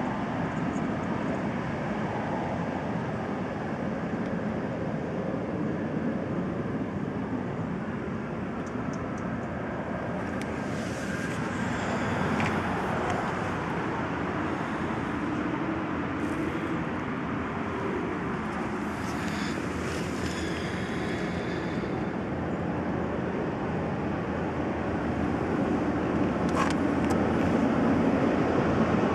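Steady background road-traffic noise, with one vehicle passing about eleven to thirteen seconds in. A few brief rustles and clicks are heard over it.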